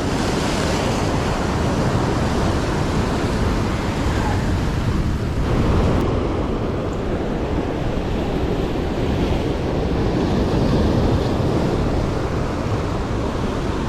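Surf breaking on the rocks, a steady rushing noise, with wind buffeting the microphone.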